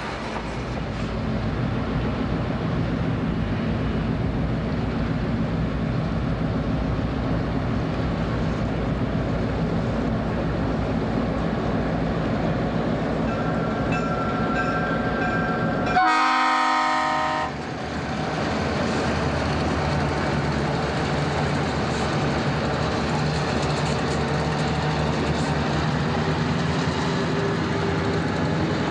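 Diesel locomotives of a Reading and Northern freight train, with an EMD SW8 switcher among them, running with a steady low engine drone. About halfway through, a locomotive horn sounds one loud blast of about a second and a half.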